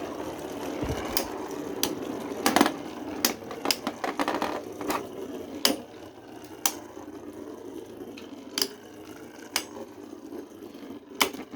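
3D-printed Beyblade spinning tops whirring in a plastic stadium, with sharp clacks as they hit each other. The whir and the hits grow quieter about halfway through, as the spin slows.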